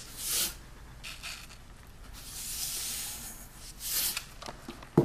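Salt being sprinkled into a pressure cooker of soaked chickpeas: several soft hissing rustles, the longest about two seconds in, with a few small clicks and a sharp click near the end.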